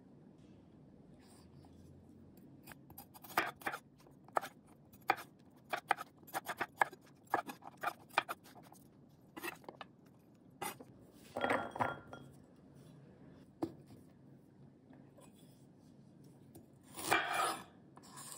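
A kitchen knife slicing peeled garlic cloves on a wooden chopping board: a run of sharp, irregular taps as the blade goes through the clove and strikes the board. Later come two brief, louder scraping bursts.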